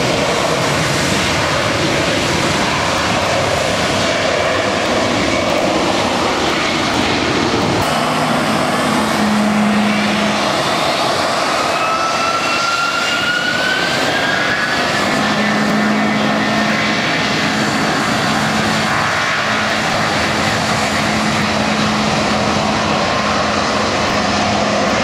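Jet airliner engines running loudly, with a whine that rises in pitch near the middle as the engines spool up. A steady low hum sets in about a third of the way in.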